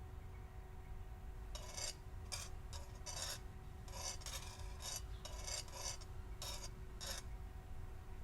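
A run of about eleven short rasping scrapes, uneven in spacing, starting about a second and a half in and stopping about a second before the end.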